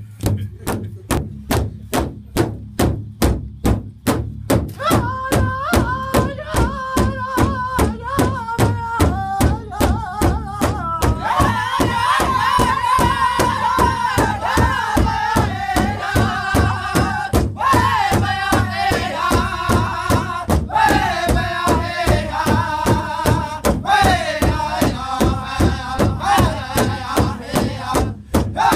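Powwow big drum struck together by a group of drummers in a steady, even beat for an intertribal song. About five seconds in, one high-pitched voice starts singing over the drum, and several seconds later more voices join in.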